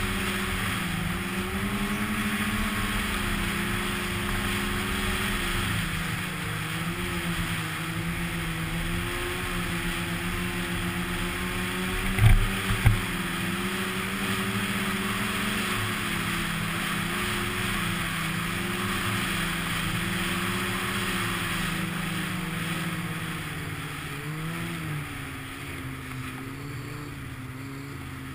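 Snowmobile engine running steadily at trail speed, its pitch wavering slightly. Two sharp thumps come about twelve seconds in. Near the end the engine eases off with a brief dip and rise in pitch, then runs lower and quieter.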